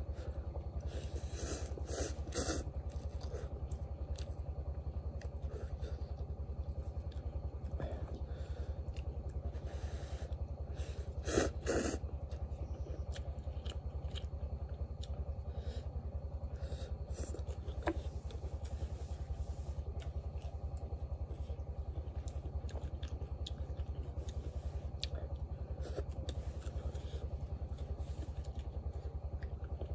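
A small engine drones steadily and low under eating noises. Noodles are slurped and chewed, with the loudest slurps about a second or two in and again around eleven to twelve seconds in.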